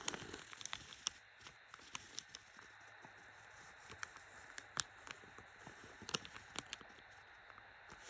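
Faint, irregular taps, clicks and light scratches of a pen working on paper while sigils are drawn, over a low steady hiss.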